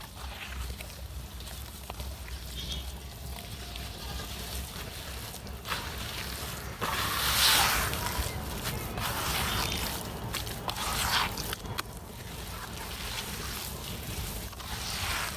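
Wet red dirt and concrete chunks crumbling in water: crackling and sloshing, loudest about seven to eight seconds in.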